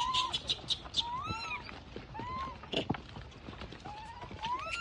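Wild macaques giving short coo calls, about six of them, each rising and then falling in pitch, with scattered clicks and rustles between them.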